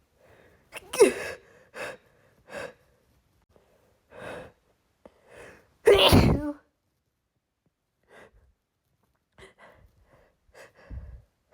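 A woman sneezing in a rapid run. The loudest sneezes come about a second in and about six seconds in, with shorter, quieter breaths and sneeze sounds between them.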